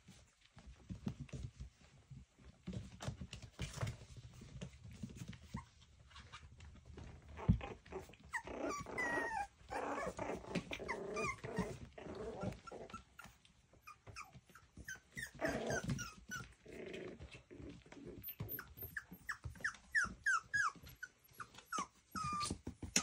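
Miniature schnauzer puppies play-growling in bursts as they wrestle, with soft scuffling of paws on a fabric blanket, then a run of short, high yips and whimpers near the end.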